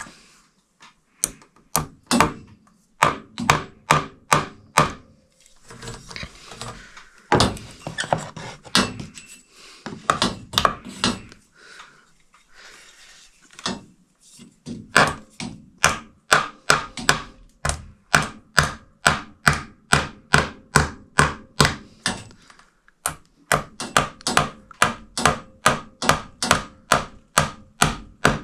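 Hammer blows, about two or three strikes a second, in runs broken by short pauses, with a stretch of rougher scraping noise between the strikes midway.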